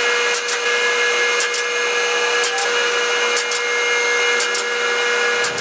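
Two-post vehicle lift's electric hydraulic pump motor running steadily as the car is raised, with a pair of sharp clicks about once a second from the lift's safety latches.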